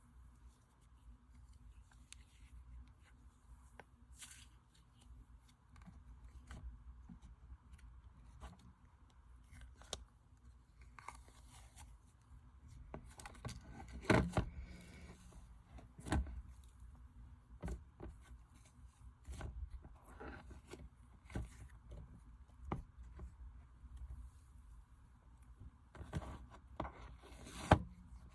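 Slime being handled and stretched: scattered soft crackles, clicks and small snaps. The loudest snaps come about halfway through and near the end.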